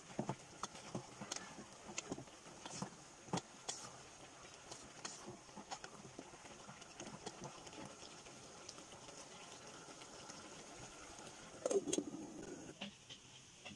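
Wooden spatula stirring squash and string beans in a simmering aluminum pot: light scattered taps and scrapes against the pot over a low bubbling. Near the end the aluminum lid is set on the pot with a short clatter.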